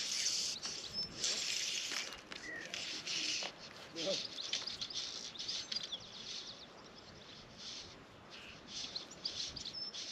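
Small birds chirping now and then over a rustling hiss that rises and falls in patches.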